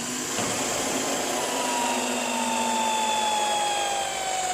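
Electric drill with an 18.5 mm bit running and boring a hole for the camera mount, its whine sinking slowly in pitch under load, then stopping near the end.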